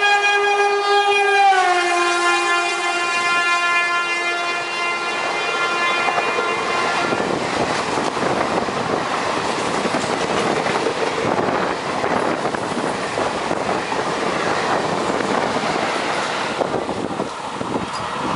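WAP4 electric locomotive's horn blaring as the train runs through at speed, its pitch dropping about a second and a half in as the locomotive passes, then stopping about seven seconds in. The coaches follow, rushing past with steady wheel and rail noise.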